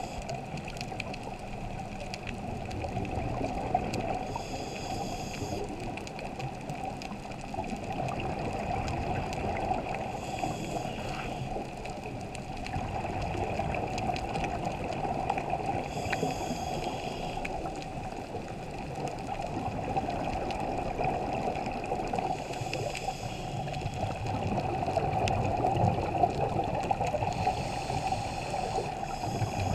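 Scuba diver breathing through a regulator underwater: a burst of bubbling hiss about every six seconds over a steady muffled water rumble.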